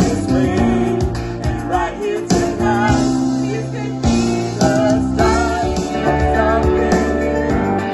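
Music: a song with a singing voice over guitar and steady bass.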